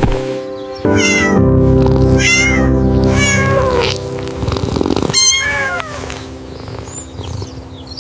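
Kitten meowing several times, with about four separate meows in the first six seconds, over steady background music.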